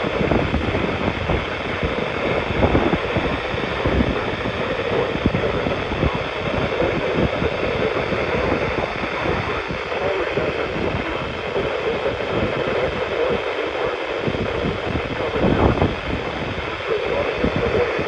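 Weather-band radio's speaker giving a steady hiss of static on 162.400 MHz, with no broadcast coming through.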